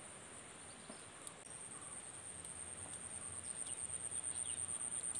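Insects trilling steadily on one high pitch, with a few short falling bird chirps about four seconds in, over faint outdoor background noise.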